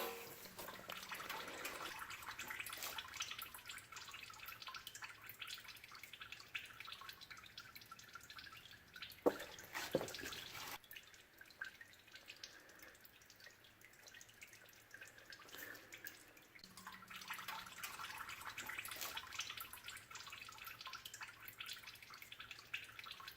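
Old engine oil dripping and trickling from the drained oil filter housing and drain plug hole into a drain pan, a faint uneven patter. There are a couple of louder knocks about nine to ten seconds in.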